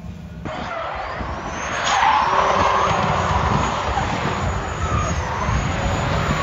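Drift cars sliding with tyres squealing and engines running hard. The sound starts abruptly about half a second in and gets louder about two seconds in.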